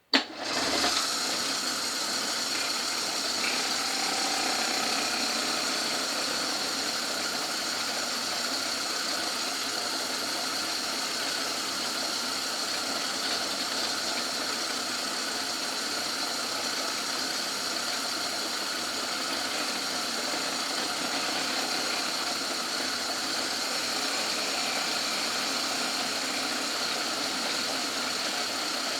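Old Myford lathe starting abruptly and then running steadily, a continuous motor-and-gear drone with a thin high whine over it.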